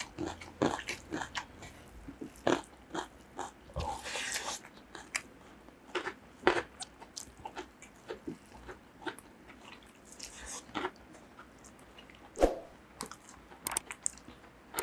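Close-miked chewing and crunching of two people eating rice, curry and raw greens by hand: irregular wet mouth sounds and crisp bites, with one longer crunch about four seconds in.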